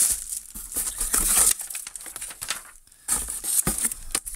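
Plastic wrapping crinkling and a cardboard shipping box being handled, in irregular rustling bursts, with a soft knock of the box near the end.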